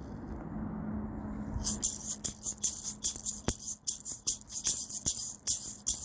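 A rattle shaken in a steady rhythm, about three strokes a second, starting a couple of seconds in over a low, steady hum.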